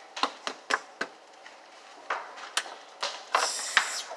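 About nine short, sharp taps and clicks of hard objects at irregular spacing, a quick cluster in the first second, then scattered ones.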